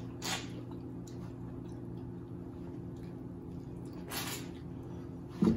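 Wet mouth sounds of someone biting and chewing sauce-coated corn on the cob, with two short slurping bites about a quarter-second in and about four seconds in. A steady low hum runs underneath, and a brief louder low sound comes near the end.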